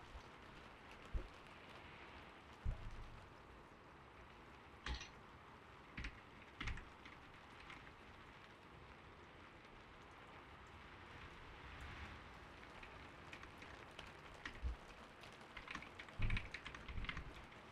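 A new mechanical keyboard typing sparsely: a few isolated keystrokes in the first seven seconds, a pause, then a short run of typing near the end. Under the typing is a steady, faint patter of gentle rain.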